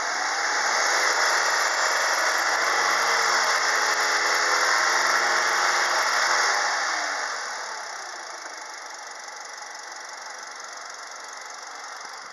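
Hyundai Solaris 1.4-litre 16-valve four-cylinder petrol engine revved up and held at raised revs for about six seconds, then dropping back to a steady idle.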